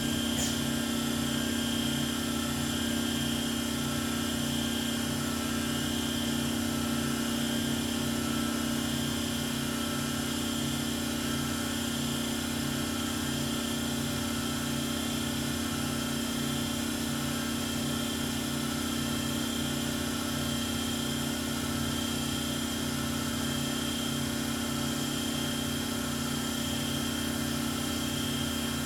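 Multi-function automatic lathe running steadily while turning small-diameter parts: a constant machine hum with a thin high whine over an evenly pulsing low drone, and one brief tick about half a second in.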